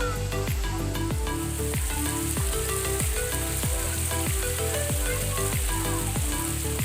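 Background music with a steady beat and a repeating bass line, with a steady hiss alongside it that grows stronger about two seconds in.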